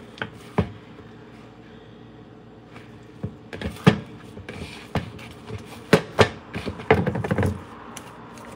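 Hands kneading dough in a plastic mixing bowl. It is quiet at first, then from about three seconds in come irregular thumps and pats as the dough is pressed and worked against the bowl.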